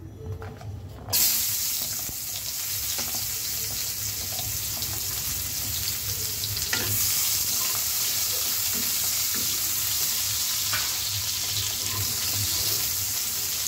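Chopped onions dropped into hot oil in a karahi, bursting into a loud sizzle about a second in that keeps on steadily as they fry. A few knocks of a wooden spatula sound as they are stirred.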